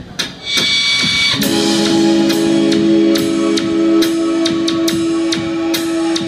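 A rock band playing live, heard from the crowd: a steady drum-kit beat, joined about a second and a half in by a loud held chord on keyboards and guitar.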